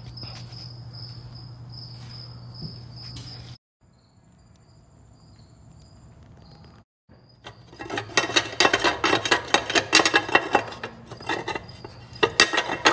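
Crickets chirping in a steady pulsing rhythm over a low hum. After a break, loud irregular metallic clinking and clattering takes over for the second half.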